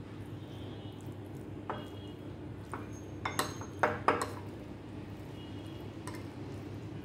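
Metal spoon clinking and scraping against a cut-glass bowl while mixing chicken strips in a soy sauce, vinegar and cornflour marinade: a few sharp clinks, the loudest around three to four seconds in, over a steady low hum.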